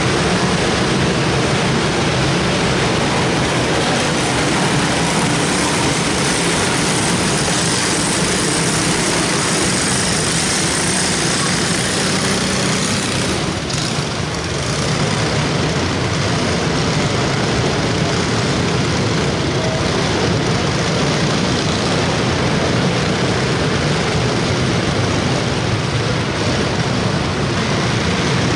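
Small racing engines running steadily as a pack of junior race cars circles the dirt oval, their sound echoing through the indoor arena.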